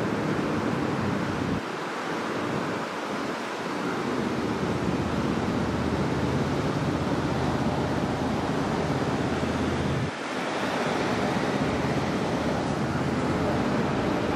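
Steady rushing noise of wind buffeting the microphone over street traffic, with no siren. The low rumble drops out briefly about one and a half seconds in and again about ten seconds in.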